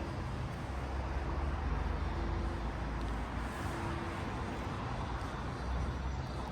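Steady urban traffic rumble, with passing vehicles swelling slightly now and then.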